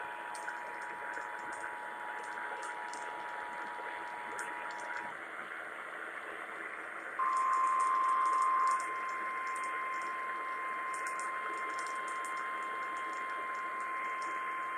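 Emergency Alert System attention signals received over radio. A steady two-tone attention signal stops about five seconds in. About two seconds later a single steady weather-radio alert tone starts, loud for a moment and then quieter. A hiss with faint crackling static runs beneath the tones.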